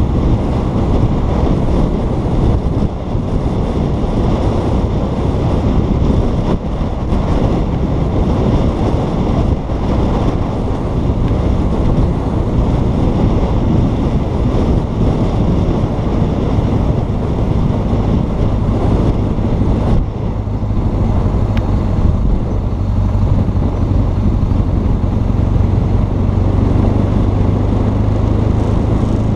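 Wind rushing over the microphone of a BMW R1200 GS Adventure motorcycle under way, with its boxer-twin engine running underneath. A steadier low engine hum comes up about two-thirds of the way in.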